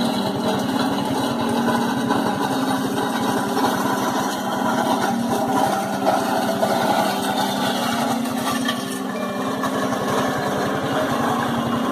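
A small engine running steadily with a fast, even pulse.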